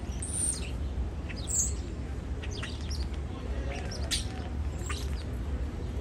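European starling singing: a loose string of clicks and high whistles, several of them quick downward-sweeping notes, over a steady low rumble.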